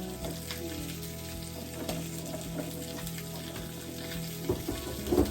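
Food sizzling in a frying pan, with two sharp knocks near the end.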